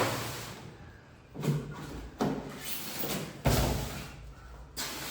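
Several separate knocks and thumps, the loudest about three and a half seconds in, each dying away quickly, as things are handled and set down.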